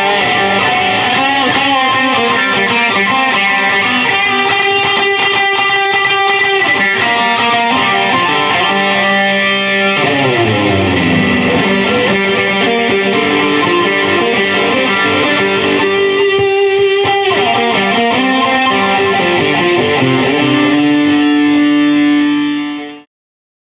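Gibson Les Paul electric guitar played through a Fender Super Champ X2 amp: single notes and chords, with a downward slide about ten seconds in. It ends on a held note that cuts off suddenly near the end.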